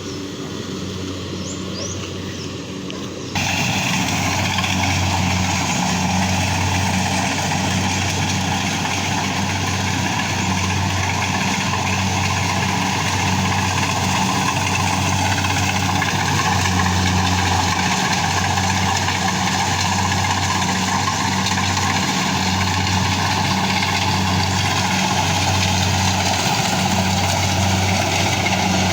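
An engine running steadily at a constant pace, a low pulsing drone with mechanical clatter over it. It turns suddenly louder and fuller a little over three seconds in.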